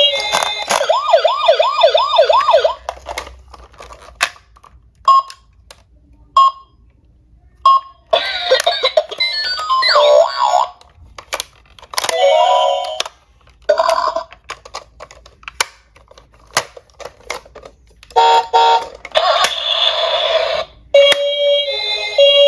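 Sirens of toy emergency vehicles: a fast yelping siren at the start, further wailing and pulsing siren sounds in stretches, and a stepped two-note siren near the end. Between them, sharp clicks and clacks of diecast minicars rolling and knocking down a slope.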